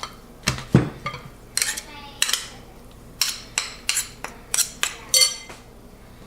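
A kitchen utensil clinking and scraping against a dish in a series of irregular sharp strikes, roughly two a second, each with a short ring.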